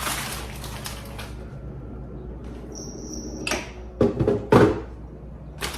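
Kitchen handling sounds: a few knocks and clunks of cookware and cupboards, with a short high tone about three seconds in.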